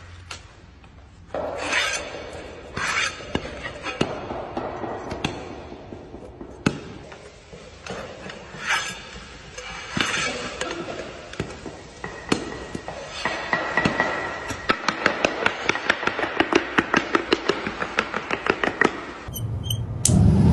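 Repeated knocks and scraping from hand or machine work, turning into a fast run of sharp knocks, several a second, in the second half.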